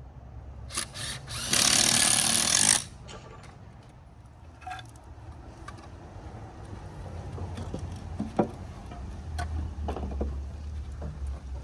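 Cordless power drill driving a screw into a wooden formwork brace in one loud burst of about a second, after two short ones, followed by a few light knocks and clicks of wood and tools.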